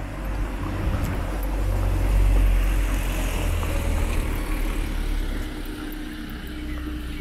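A car driving past on the street, its engine and tyre noise swelling to a peak about two seconds in and then slowly fading.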